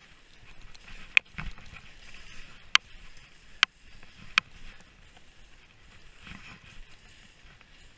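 Skis swishing through soft powder snow, with five sharp knocks in the first half, the loudest sounds here.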